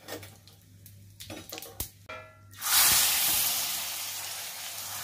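Hot oil with seeds and dried red chillies crackling in a clay diya. About two and a half seconds in, a loud sudden sizzle starts and carries on as the hot clay diya of tempering is plunged into the kadhi.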